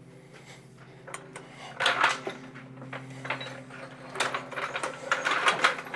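Irregular metallic clinks and knocks of tools and small metal parts being handled, starting about a second in and coming in quick clusters, over a steady low hum.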